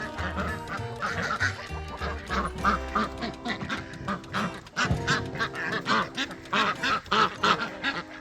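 Background music with a quick run of short, repeated animal calls over it, several a second.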